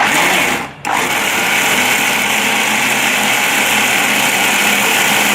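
Electric mixer grinder (mixie) running at high speed, grinding roasted peanuts into peanut butter. It drops out briefly just before a second in, then runs on steadily.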